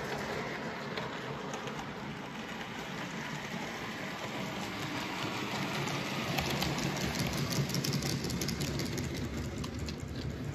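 OO gauge model diesel locomotive and wagons running along the track. The sound grows louder as the train passes close about six to eight seconds in, with fast clicking of wheels over the rail joints, then fades.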